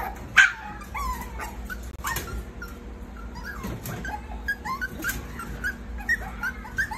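Havanese puppies whining and whimpering: a run of many short high cries, several sliding up or down in pitch, with one louder, sharper yip about half a second in.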